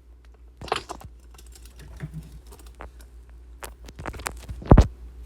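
Scattered sharp clicks and taps, like typing or handling things on a desk, with a burst of clicks about a second in and a much louder low thump near the end.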